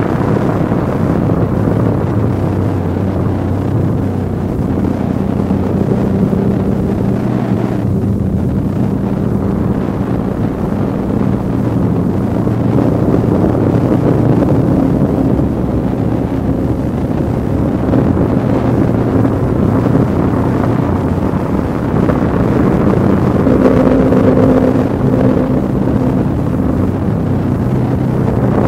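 Dark ambient drone music: a dense, noisy low wash with several held low tones that shift slowly, and a brighter pair of held tones entering a few seconds before the end.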